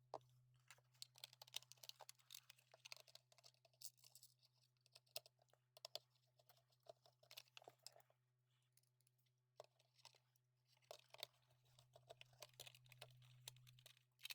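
Faint, irregular small clicks and taps of a plastic wireless mic belt pack being handled and its case screwed back together, over a steady low hum.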